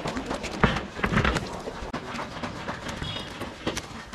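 Wet wash mitt rubbing over a car's body panels as shampoo is wiped off, with scattered light knocks and a brief high squeak about three seconds in.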